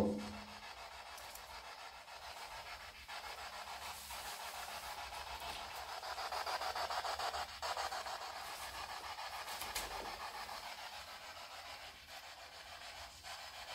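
Spirit box sweeping through radio frequencies: a continuous hiss of static chopped by rapid flicker, swelling louder around the middle.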